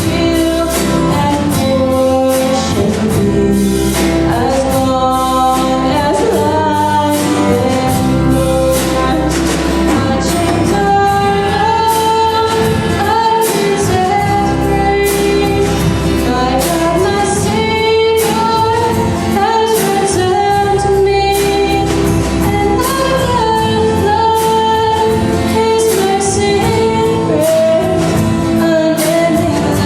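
A Christian worship song: singing with instrumental accompaniment, held sung notes over a steady beat.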